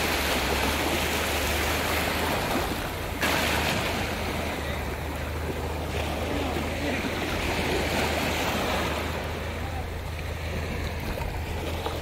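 Small waves washing onto a sandy shore, with wind rumbling on the phone's microphone. The level jumps suddenly about three seconds in.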